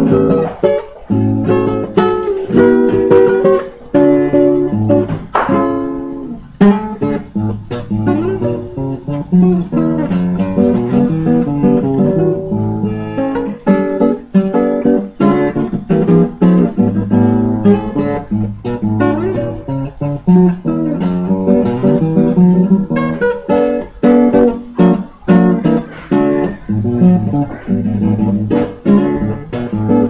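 Acoustic guitar played fingerstyle: a plucked melody over low bass notes, the notes following one another continuously.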